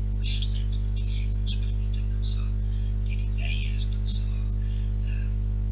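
Loud steady electrical hum on the recording, with faint, hissy, whisper-like voice fragments coming and going over it.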